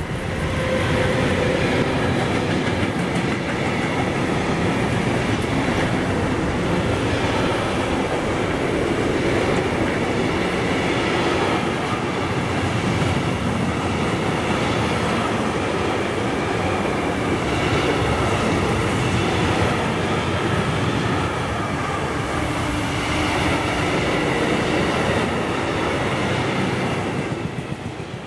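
Electric freight train passing close by: the locomotive goes past at the start, followed by a long run of intermodal wagons carrying swap-body containers, with steady wheel and rail noise throughout.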